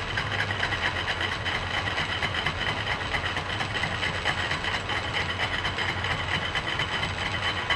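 Antique Selig Sonnenthal metal lathe running on its swapped-in half-horsepower electric motor, a steady motor hum with a fast, even rattle from the drive and gearing.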